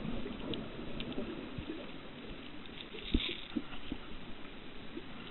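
Water sloshing and lapping, with a few light clicks and one sharper knock about three seconds in.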